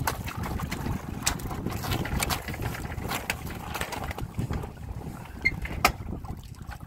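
Water slapping and splashing against the hulls of a Windrider 17 trimaran under sail, with wind rumbling on the microphone. Irregular small slaps throughout, and one sharp slap a little before the end.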